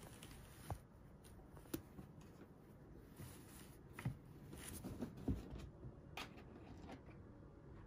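Faint rustling of laundry being handled on a clothes-drying rack, with a few light knocks scattered through.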